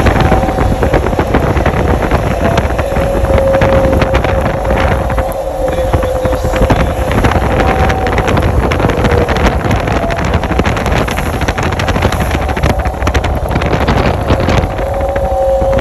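Strong wind buffeting the microphone over vehicle road noise, with crackling gusts and a faint steady two-pitch tone underneath.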